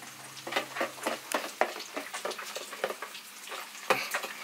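Waffle batter being stirred by hand in a plastic bowl: irregular clicks and scrapes of the utensil against the bowl's side.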